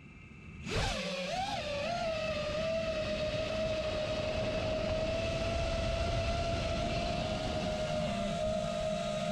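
FPV racing quadcopter's brushless motors and propellers spinning up suddenly about a second in. The pitch wavers briefly as it lifts off, then settles into a steady high whine in flight.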